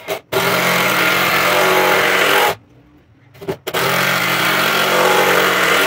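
Cordless drill/driver running at full speed while driving wood screws into a wooden bench frame. It runs in two steady spells of about two seconds each, with short trigger blips before each.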